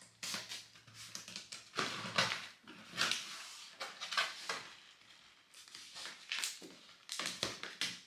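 A cardboard shipping box being packed and closed by hand: tissue paper crinkling, the flaps folded down and packing tape put across them, heard as a series of irregular rustles and scrapes.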